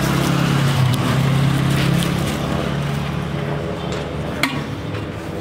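A motor vehicle's engine running close by, a steady low hum that is strongest in the first two seconds or so and then fades. A single sharp click comes about four seconds in.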